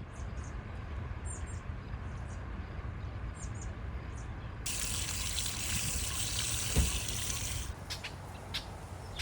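Water gushing for about three seconds, over a low outdoor rumble, with a few faint short bird chirps before it and a single thump near the end of the gush.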